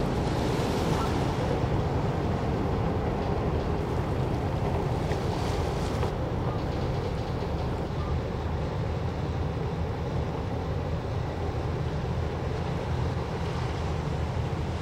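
Steady low drone of a passing container ship's diesel engine and propeller, with water washing along the hull and wind on the microphone.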